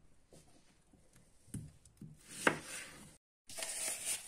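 Kitchen knife cutting onions on a wooden cutting board: several irregular knocks of the blade against the board, the loudest about two and a half seconds in. The sound then cuts out abruptly for a moment.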